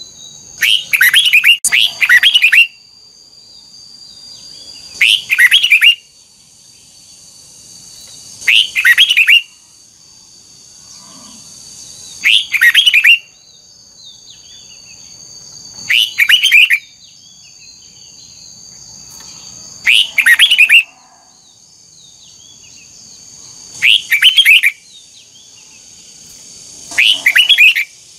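Red-whiskered bulbul singing short, loud whistled song phrases, one about every four seconds, eight in all. A faint steady high-pitched tone runs underneath.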